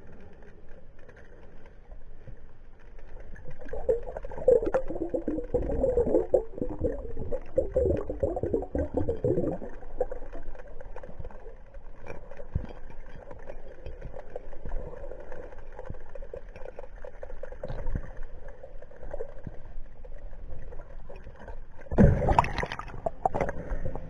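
Muffled underwater sound picked up by a camera submerged in a river: water noise with knocks and a stretch of bubbling, then a louder rush near the end.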